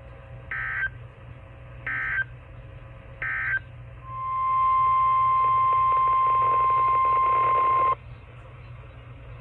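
Emergency Alert System SAME header on NOAA Weather Radio: three short warbling digital data bursts, about a second and a half apart. They are followed by the steady 1050 Hz weather alert tone for about four seconds, which cuts off suddenly. The tone marks the start of a new warning broadcast, heard over radio hiss and a low hum.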